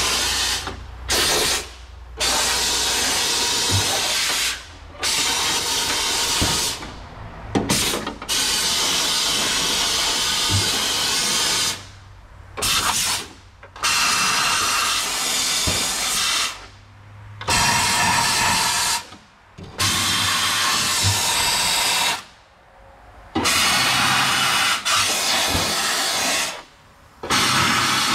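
An oil-undercoating spray wand spraying into the cavities of a truck's hood and fenders. Its rushing spray noise comes in about a dozen runs of one to four seconds, starting and stopping sharply as the trigger is pressed and released.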